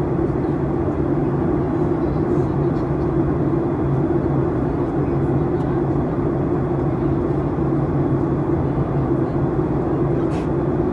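Passenger airliner cabin noise in flight: the steady drone of the engines and rushing air, with an even low hum.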